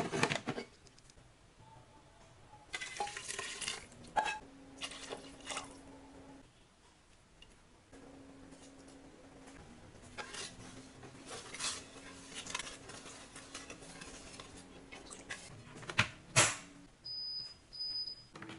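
Electric rice cooker's inner pot knocked into place, then a plastic rice paddle scraping and stirring liquid and rice against the pot. Near the end the cooker lid snaps shut with two loud clicks, followed by two short high electronic beeps as the cooker is switched on.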